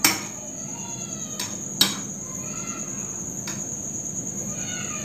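Metal spoon stirring chutney in a glass bowl, clinking sharply against the glass four times, loudest at the start and about two seconds in. A steady high-pitched trill runs underneath.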